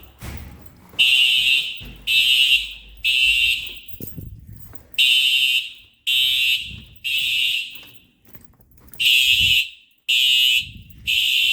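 Building fire alarm horn sounding the temporal-three (T3) evacuation signal: three high-pitched blasts about a second apart, then a pause, repeating.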